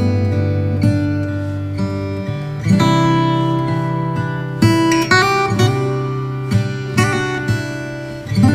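Background music: acoustic guitar playing plucked notes and chords, each note ringing on.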